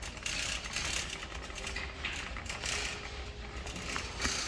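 Busy store background noise with scattered light clicks and rattles, a few seconds apart.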